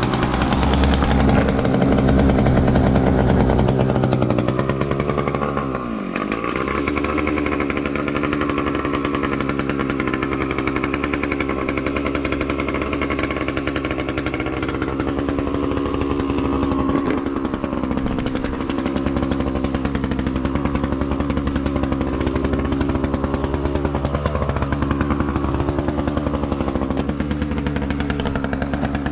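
Petrol brushcutter (strimmer) engine running steadily. Its revs dip briefly and recover about six seconds in.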